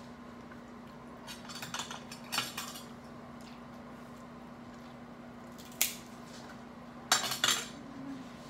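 Shellfish shells being cracked and picked apart by hand, with utensils clicking against plates. The cracks and clinks are scattered: a sharp one about six seconds in and a quick cluster near the end. A steady low hum runs underneath.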